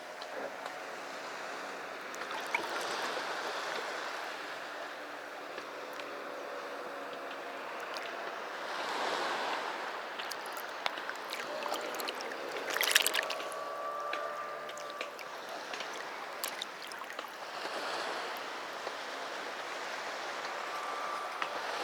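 Sea waves washing up on a beach: a steady wash that surges about three times, with a sharper splash about 13 seconds in.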